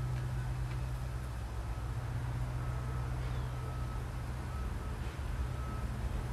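A steady low hum, with a faint short high-pitched tone coming and going several times over it.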